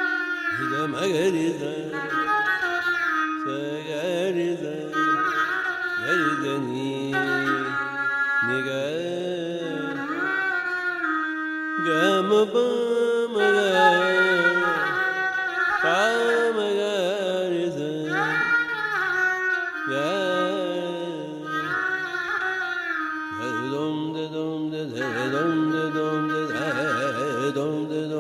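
Background music in a South Indian classical (Carnatic) style: a melody with gliding, bending notes over a steady drone.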